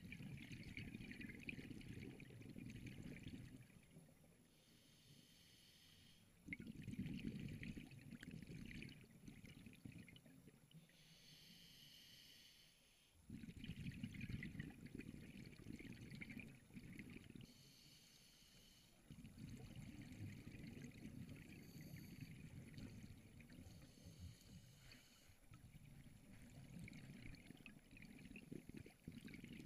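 Faint underwater scuba breathing through a regulator: long bubbling exhalations alternating with shorter hissing inhalations, about one breath every six or seven seconds.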